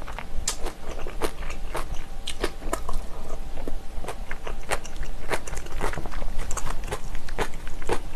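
Close-miked mouth sounds of a person chewing braised kimchi and rice: a steady run of sharp, wet smacks and clicks, several a second.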